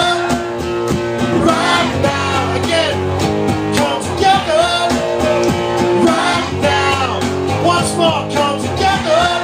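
A man singing a song into a microphone while playing guitar, heard live in the room.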